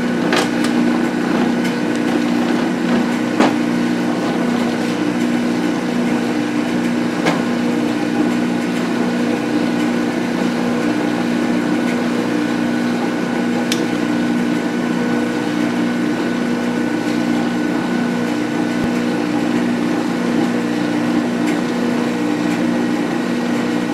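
Metal lathe running steadily at low spindle speed during a thread-cutting pass: a single-point threading insert takes a 0.005-inch plunge cut into a metal shaft. Steady machine hum with a few faint clicks.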